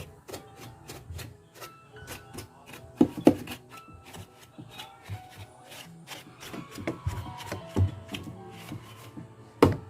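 Many small clicks and knocks of parts and tools being handled during a repair, with a few louder knocks about three seconds in and near the end, over music playing in the background.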